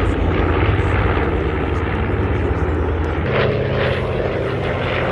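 Propeller airplane engine running steadily, its tone changing about three seconds in.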